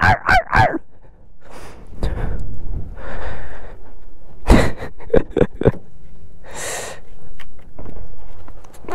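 A person breathing heavily and close to the microphone, in long noisy breaths, with a few short wordless vocal noises right at the start and again about halfway through.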